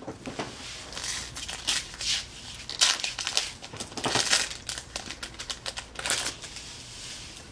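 Pokémon trading cards rustling and clicking as they are slid off the stack and flipped through in the hands one at a time, in irregular crinkly bursts.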